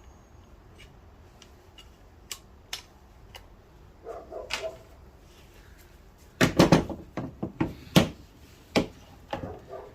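Scattered sharp plastic clicks and knocks from handling the door handle and its retaining clip, with a burst of loud knocks a little past the middle and a few single knocks after.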